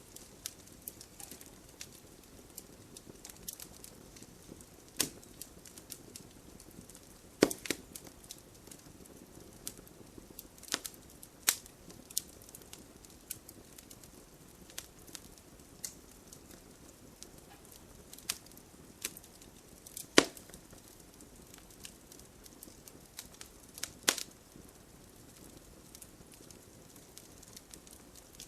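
Wood fire in a fireplace crackling: a soft steady hiss of flame with irregular sharp pops and snaps from the burning logs. A few snaps stand out loudly, the sharpest about a quarter of the way in and about two-thirds of the way through.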